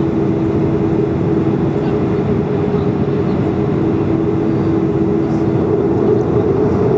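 Boeing 737 jet engines heard from inside the passenger cabin: a steady rumble with an even droning hum.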